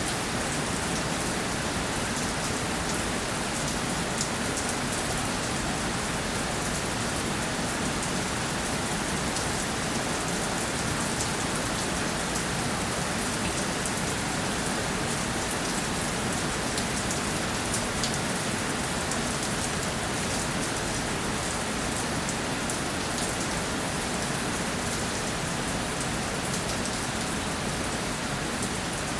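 Steady rainfall, with many fine drop ticks over an even hiss of rain on a surface.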